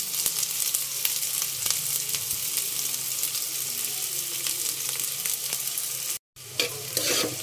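Onions sizzling in hot mustard oil in a karahi, a steady hiss with frequent small crackles. The sound cuts out for a moment near the end.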